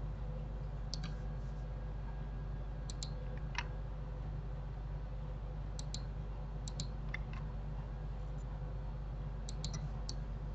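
A dozen or so short clicks from a computer mouse and keyboard, scattered and often in close pairs, over a steady low hum.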